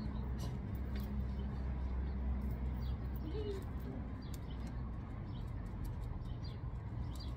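Outdoor ambience: small birds chirping here and there over a steady low rumble, with a short cooing call about three seconds in.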